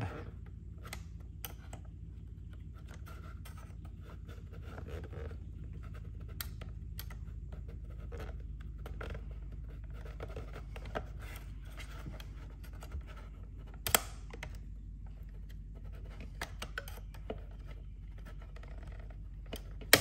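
Small flathead screwdriver scraping and clicking against the plastic tabs of a truck's overhead console as it is pried apart, with one sharp plastic click about two-thirds of the way through. A steady low hum runs underneath.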